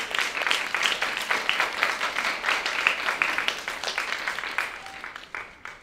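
Audience applauding, with many separate hand claps that die away near the end.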